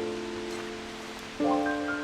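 Background music: soft, sustained notes, with a new chord struck about one and a half seconds in.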